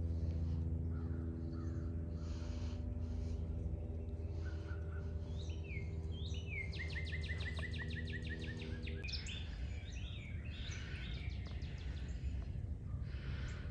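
Wild birds chirping and calling, including a fast run of short falling notes midway, over a steady low hum that stops about nine seconds in.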